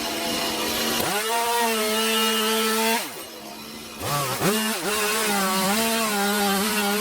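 Chainsaw revved to full throttle while carving into a log. It runs high for two stretches, dropping back briefly around three seconds in, with the pitch dipping and wavering as it loads in the wood.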